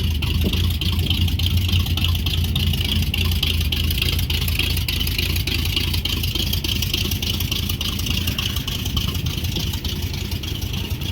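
1983 Chevrolet C10 pickup engine idling steadily just after a cold start in freezing weather, left to warm up.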